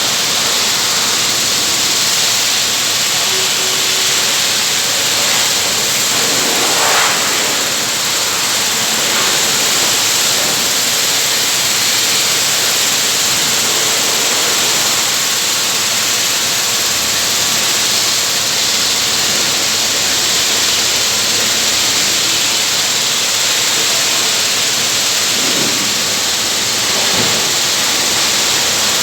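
A Toyota Land Cruiser Prado with a noise problem making a steady, loud rushing hiss, with no rhythm or clear pitch.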